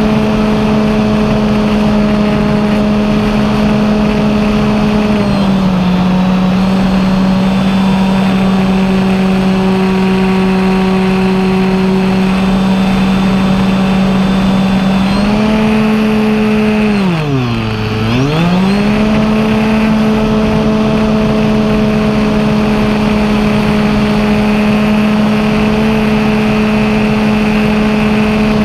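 BigStick RC model plane's motor and propeller buzzing steadily in flight. The pitch eases down slightly about five seconds in as the throttle is pulled back, then rises again about fifteen seconds in. Around seventeen seconds the pitch dips sharply and climbs straight back, a brief throttle chop.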